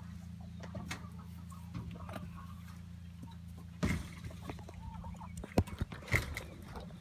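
Backyard chickens clucking over a steady low hum, with a few sharp knocks about four and six seconds in.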